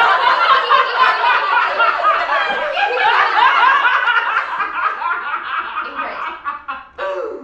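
Several people laughing hard together, overlapping cackles and chuckles that taper off toward the end, with one last short laugh just before the end.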